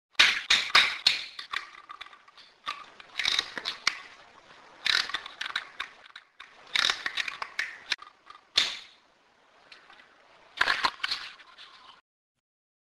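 Sharp clicks and cracks in irregular clusters, several quick ones at a time, every second or two, stopping about twelve seconds in.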